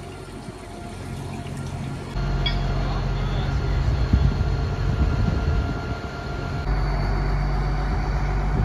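Heavy diesel engine of a crane on a work barge, idling steadily with a low rumble. The sound jumps abruptly louder about two seconds in and again near seven seconds.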